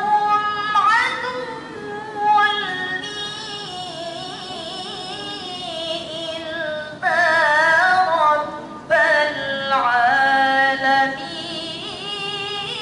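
A female student's voice reciting the Qur'an in melodic tilawah style into a handheld microphone: long held notes with wavering ornaments, rising into louder, higher phrases about seven and nine seconds in.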